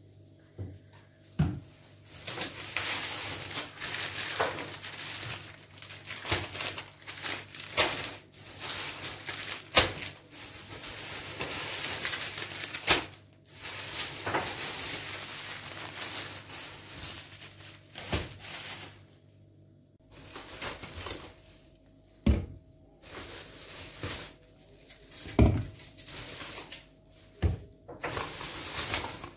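Plastic grocery bags rustling and crinkling while groceries are unpacked, with sharp knocks as bottles, cartons and packets are set down on a kitchen counter.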